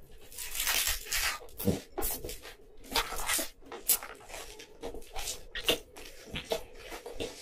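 A bite taken into a slice of pizza, then chewing of a full mouthful, heard as irregular noisy bursts a few times a second.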